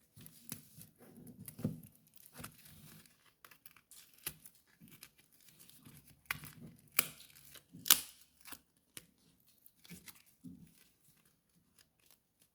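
Packaging being torn open and crinkled by hand: a run of short rustles, rips and clicks, with two louder rips about seven and eight seconds in.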